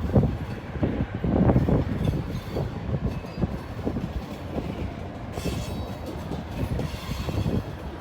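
Freight train of grain hopper cars rolling past, its wheels clacking over the rail joints, with a steady low rumble.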